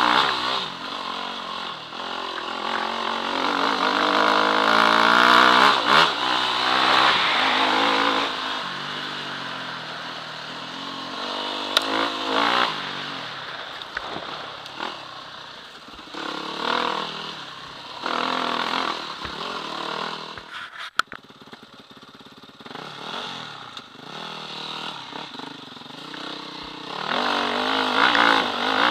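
Dirt bike engine revving up and down as it rides a rough forest trail, its pitch rising and falling with the throttle. About two-thirds of the way through, the engine briefly drops away before picking up again.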